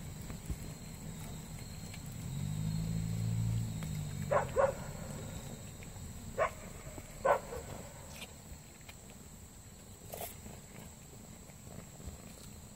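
Two cats eating dried anchovies. About two seconds in there is a low growl lasting over a second, then a handful of short, sharp crunches as the small dried fish are chewed.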